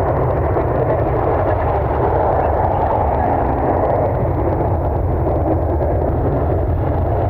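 Steady low roar of a Southwest Boeing 737's jet engines at takeoff power during its takeoff roll.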